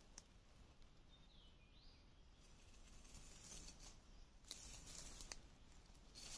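Near silence, with faint scrapes of a machete blade over leaf litter and soil, most of them around four and a half to five and a half seconds in. A faint short bird chirp comes about a second and a half in.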